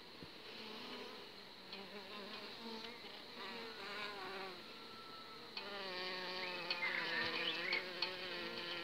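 Honeybees buzzing close by, a wavering hum of several bees that grows louder about halfway through, with a few light clicks.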